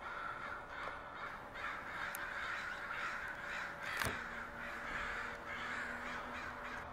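A flock of crows cawing overhead, many harsh calls overlapping continuously. There is a single sharp click about four seconds in.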